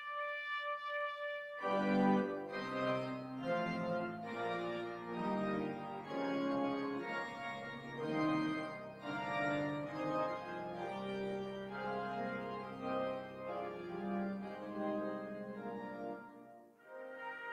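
Church organ and trumpet playing a closing piece. A solo trumpet line holds its last notes for about a second and a half, then the organ comes in with full chords over a bass line and plays alone, breaking off briefly near the end.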